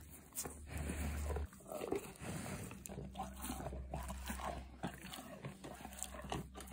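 A cow biting and chewing a raw sweet potato, with irregular crunches, over a low hum during the first second and a half.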